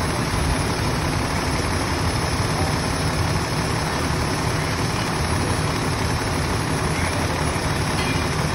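Fire engine's diesel engine running steadily, a continuous low drone with no change in speed.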